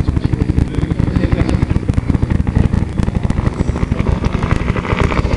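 Low-flying Bell UH-1 Huey-type military helicopter passing, its two-bladed main rotor beating in a loud, rapid, steady pulse.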